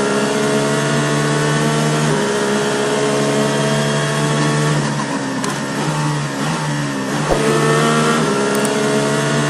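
Motorbike engine sound, running and revving, its pitch easing off and picking up again a few times.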